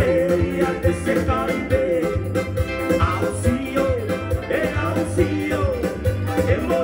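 A man sings a Wallisian song through a PA over a live band: acoustic guitar and a steady low beat.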